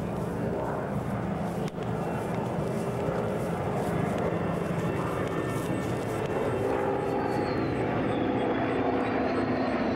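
Mixed formation of Grumman warbirds, propeller fighters flying with jets, approaching in a steady aircraft engine drone that grows slowly louder toward the end.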